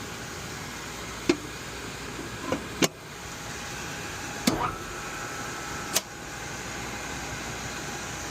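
Steady mechanical running noise with a faint hum, broken by five short sharp clicks or knocks in the first six seconds.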